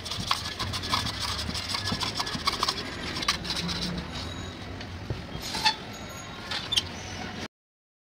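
Flat metal blade scraping old paint and filler off a thin metal sheet: irregular scrapes and sharp clicks of blade on metal. The sound cuts off abruptly near the end.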